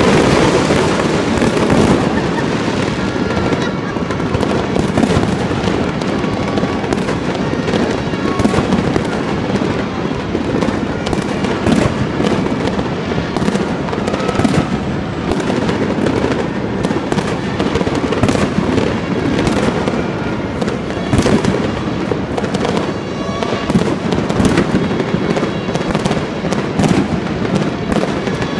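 Fireworks display: aerial shells bursting in a dense, continuous run of bangs and crackle, many sharp reports close together.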